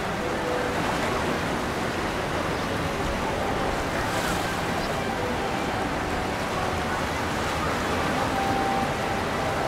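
Steady rush of ocean waves and churning water in a windy inlet, with wind buffeting the microphone.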